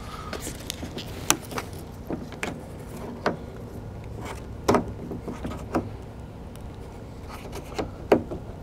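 A plastic trim stick prying at the chrome outer belt molding of a 2015 Jeep Grand Cherokee door: irregular sharp clicks and taps as the tight-fitting molding is worked loose, loudest about halfway through and near the end, over a low steady hum.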